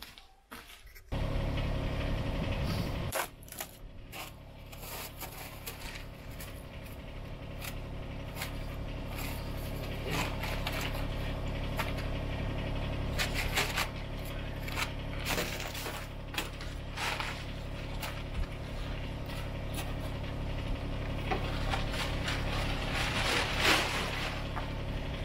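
A compact tractor's diesel engine idling steadily, starting abruptly about a second in, with a plastic tarp rustling and scraping as it is pulled off the backhoe attachment.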